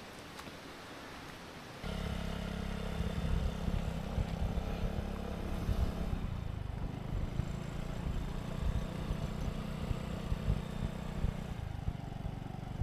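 Vespa scooter engine running steadily, cutting in abruptly about two seconds in after a faint hiss; its sound shifts a little around six seconds in.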